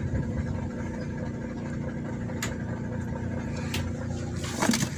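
Engine idling steadily, with two sharp clicks and a cluster of clicks and knocks near the end.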